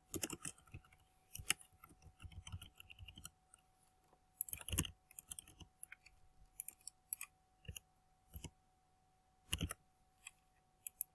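Computer keyboard typing in short irregular bursts, with a few louder single clicks in between.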